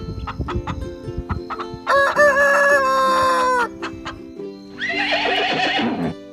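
A rooster crows once, a long call starting about two seconds in, and near the end a horse whinnies, the call falling in pitch as it ends; background music plays throughout.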